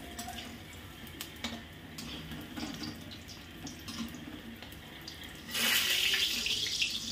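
Pakoras sizzling as they deep-fry in hot oil in a metal kadhai, with light clicks of a metal slotted spoon against the pan. About five and a half seconds in, the sizzle swells loudly for a second and a half as the pakoras are stirred in the oil.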